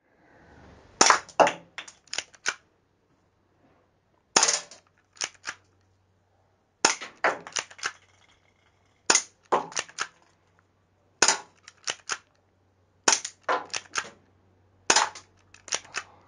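CyberGun Sig Sauer P226 spring-powered airsoft pistol fired seven times, about two seconds apart, at small bottle targets. Each shot is a sharp crack followed by a few quick lighter clicks.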